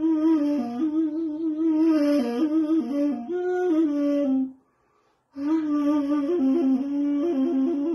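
Persian ney, an end-blown reed flute, played solo: a slow melody with ornamented turns around one low note, breaking off briefly for a breath about four and a half seconds in, then resuming with quick trills.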